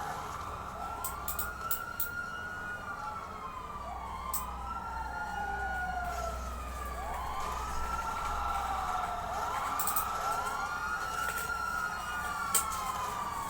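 Wailing siren, its pitch rising quickly and falling slowly about every three seconds, with two wails overlapping at times. A few sharp clicks are heard over it.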